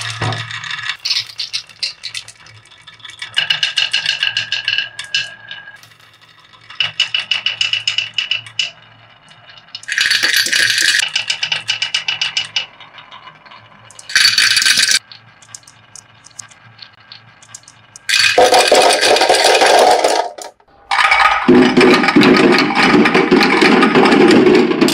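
Glass marbles clicking against one another and rattling along a wavy wooden marble-run track, in several separate runs of clicks with a faint glassy ring. After about 18 seconds comes a longer, louder clatter as the marbles tumble into a clear plastic container.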